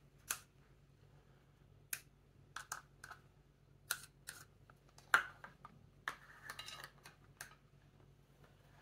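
Scattered light taps and clicks of paintbrushes knocking against small plastic paint pots and a glass baking dish, about one every second, with a short rustle about six seconds in.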